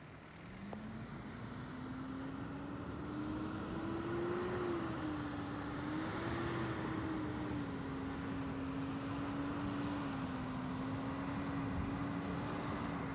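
Wildland fire engine's motor running as the truck drives a dirt road; its pitch climbs over the first few seconds, then holds fairly steady, rising and falling slightly.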